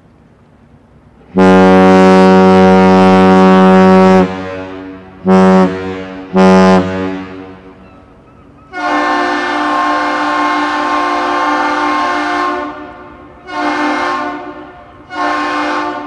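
Great Lakes freighter Burns Harbor sounding her deep ship's horn in the one-long, two-short master's salute: a long blast of about three seconds, then two short blasts. A second, higher-pitched horn answers with the same long-short-short pattern, the Aerial Lift Bridge returning the salute.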